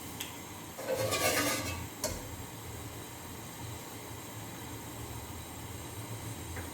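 Kitchen handling noise while getting a pan ready to fry: a short rustling, scraping burst about a second in, then one sharp click, over a steady low hum.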